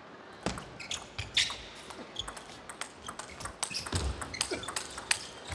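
Table tennis rally: the plastic ball clicking sharply off the players' rubber bats and bouncing on the table in quick, uneven alternation.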